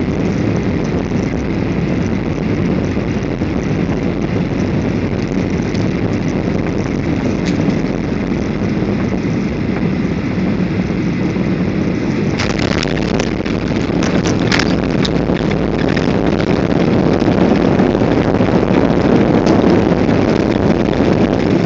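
Cabin noise of a jet airliner landing: a steady roar of engines and airflow, then touchdown about twelve seconds in with a burst of rattling and a sharp knock. After that the roar grows louder as the plane rolls out on the runway.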